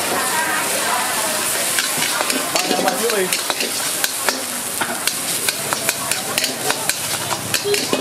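Chicken fried rice sizzling in a hot wok as it is stir-fried, with a metal spatula scraping and clacking against the wok many times.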